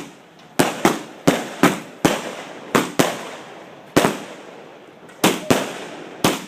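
Fireworks going off at close range: about eleven sharp bangs at uneven intervals, each trailing off briefly in echo.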